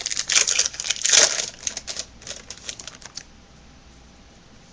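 A baseball card pack wrapper being torn open and crinkled: a dense crackle for the first second and a half, thinning to scattered crinkles and ticks that stop about three seconds in.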